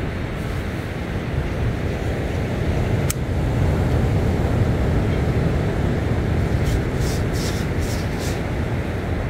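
Steady low rushing noise of wind on the microphone over moving water, with a sharp click about three seconds in and a few short hisses near the end.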